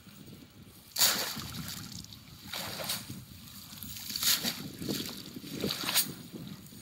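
Cast net dunked into shallow river water, splashing in four bursts about a second and a half apart, the first the loudest.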